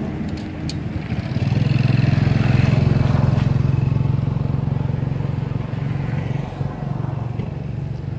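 A motor vehicle engine running off-camera, a low steady hum that grows louder about a second and a half in and slowly fades toward the end, like a vehicle passing by.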